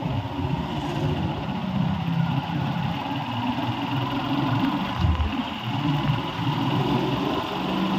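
Engine of a moving two-wheeler running steadily while riding, with road and wind noise.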